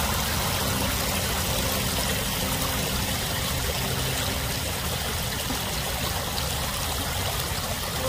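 Shallow river flowing over a stony bed: a steady rush of water.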